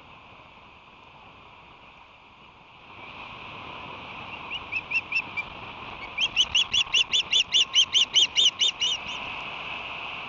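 Osprey calling: a short run of about four sharp chirps, then after a brief pause a longer series of about fourteen rapid, evenly repeated chirps, roughly five a second, over a steady hiss.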